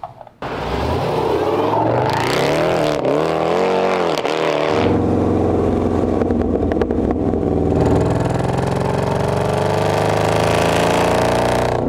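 Supercharged 6.2-litre V8 of a tuned Jeep Grand Cherokee Trackhawk running through its aftermarket exhaust. The engine note rises and falls several times, and from about five seconds in it climbs in one long steady rise under acceleration.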